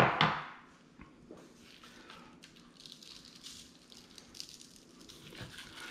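Grains of coarse kosher salt and cracked black pepper sprinkled from gloved fingers onto a raw brisket and its paper-lined tray: a faint, scattered patter of tiny ticks.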